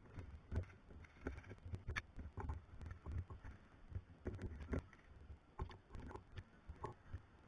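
Irregular soft knocks and thuds with scattered sharp clicks, uneven in timing, like the handling and movement noise of someone moving with gear.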